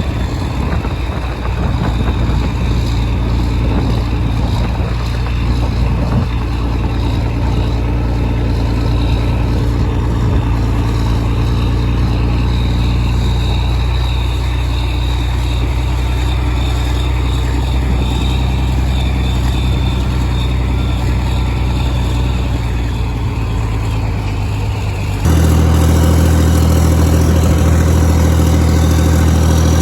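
Tractor engine running steadily. About 25 seconds in, the sound jumps abruptly to a louder, steadier run at a different pitch.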